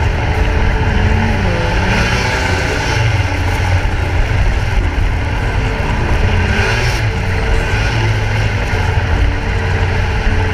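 Snowmobile engine running steadily at trail speed, its pitch wavering slightly.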